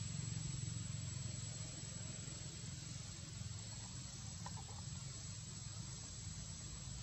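Steady background noise: an even hiss over a low rumble, with a few faint short chirps about four and a half seconds in.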